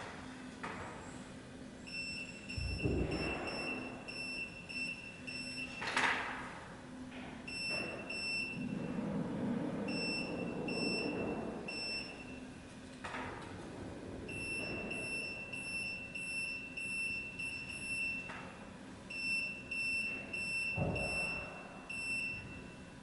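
An electronic warning beeper sounds fast, high-pitched beeps in long runs broken by short pauses. Occasional sharp knocks of work on the rail come through, the loudest about six seconds in.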